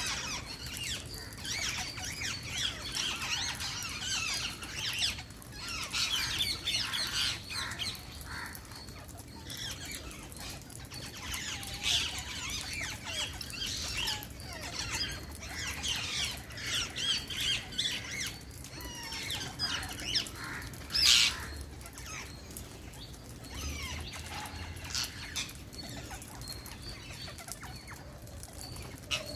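Wild parrots chirping and squawking in quick, overlapping calls that come in busy spells with short lulls, with one louder squawk about two-thirds of the way through.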